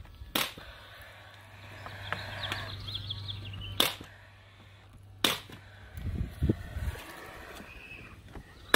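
18-gauge pneumatic finish nailer firing nails into wood lap siding: about four sharp shots, each a second or more apart. A low steady hum runs through the middle.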